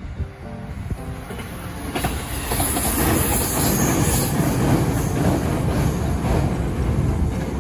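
A train passing at close range over a level crossing. The rumble and wheel noise build from about a second and a half in and stay loud, with a high hiss from the wheels for a couple of seconds in the middle.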